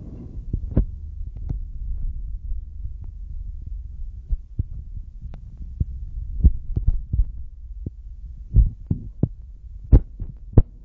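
Low, steady rumble of a moving car heard from inside the cabin, broken by irregular sharp knocks and thumps, the loudest about six and a half, eight and a half and ten seconds in.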